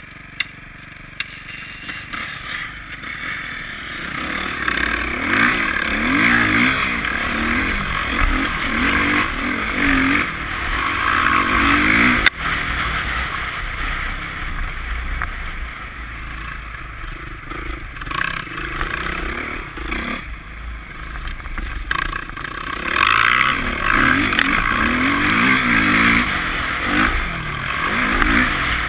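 Dirt bike engines revving up and down as they ride, with a steady rushing noise from riding in the wind. The engine sound builds from about four seconds in, eases off a little past the middle, and picks up again near the end; there is one sharp knock about twelve seconds in.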